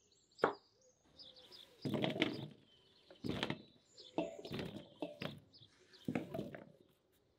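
A knife strikes the cutting board once about half a second in, then comes a run of longer, duller cutting and scraping sounds of food being prepared, about one a second. Small birds chirp throughout.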